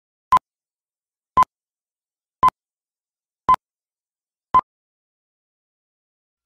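Countdown-leader beeps: five short electronic beeps on the same pitch, evenly spaced about a second apart, one for each number of the countdown.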